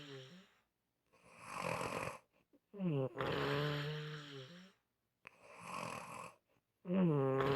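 A person snoring in a regular rhythm: a drawn-out snore with a steady low hum, then a softer breathy rush of air, the cycle repeating about every four seconds.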